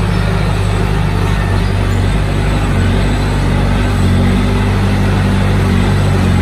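Heavy diesel engine of earthmoving machinery running steadily under load, its pitch rising slightly over the middle seconds.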